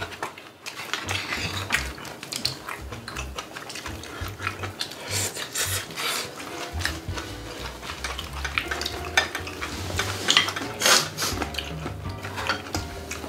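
Metal chopsticks and spoons clicking and scraping against bowls and the pan at a shared meal, with a spoon stirring through the saucy bulgogi in the pan. The sharp clicks come irregularly, with a few louder ones about five seconds in and again about ten seconds in.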